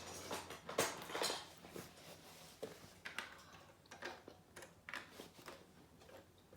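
Plastic Lego bricks clicking and rattling as pieces are picked over and fitted together: a scattered string of light clicks and taps.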